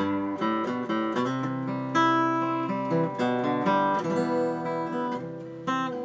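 A 1980 Höfner six-string acoustic guitar played, a run of picked notes and strummed chords ringing one after another.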